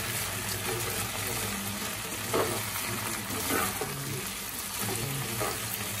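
Fried chicken in a honey-and-sesame glaze sizzling in a nonstick pan while a spatula stirs and scrapes it, with a few sharper scrapes standing out.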